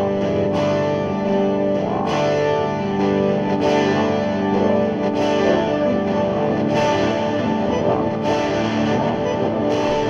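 Electric guitar played through effects: sustained, layered notes blending into a wash, with a new strike about every second and a half.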